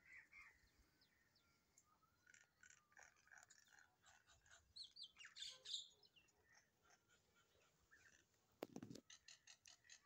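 Faint bird chirps and calls from a common myna and small caged parrots. The notes are short and come in scattered runs, busiest around the middle and in a quick series near the end. A short thump comes just before the nine-second mark.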